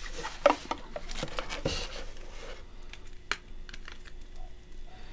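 Handling noise as items are packed into a soft fabric carrying pouch: cloth rustling and small clicks and taps of cables and plastic parts, busy at first, then only a few separate clicks after about two and a half seconds.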